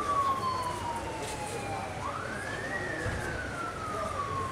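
Siren wailing: each cycle rises quickly in pitch, then falls slowly over a few seconds, with a new cycle starting about two seconds in. Steady crowd noise underneath.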